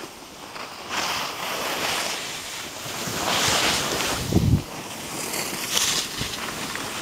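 Skis hissing and scraping over packed snow through turns, the rush swelling and fading every second or two, with wind buffeting the microphone. A brief low thump comes about four and a half seconds in.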